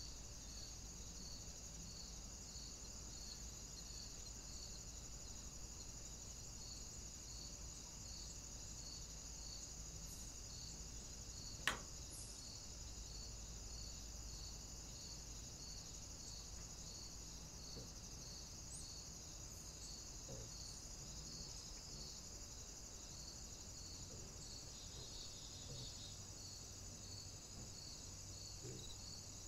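Insects singing in a steady high chorus, with a regular chirp pulsing a little under twice a second, under a steady low hum; one sharp click about halfway through.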